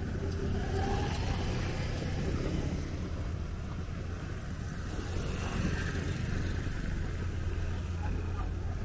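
Street traffic ambience: a steady low rumble from passing scooters and cars.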